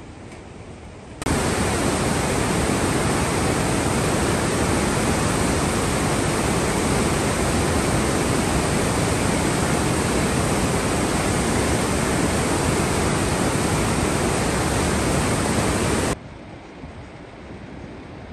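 Mountain river rapids rushing loudly in a steady whitewater noise that starts abruptly about a second in and cuts off sharply near the end.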